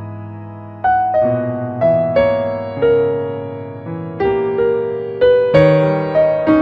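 Background music: solo piano, single notes and small chords struck about twice a second and left to ring out.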